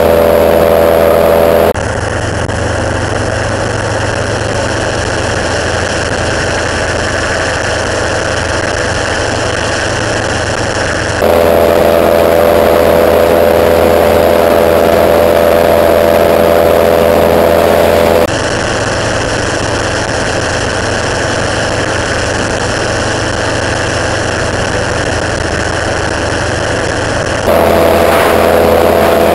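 Monarch gyroplane's engine and propeller running steadily in low-level flight. The tone and loudness shift abruptly a few times: about 2 seconds in, around 11 and 18 seconds, and near the end.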